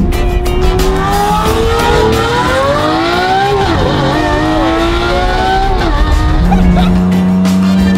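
Lamborghini Aventador's V12 accelerating hard: the engine's pitch climbs, drops at a gear change about three and a half seconds in, then climbs again before settling to a steady low tone near the end.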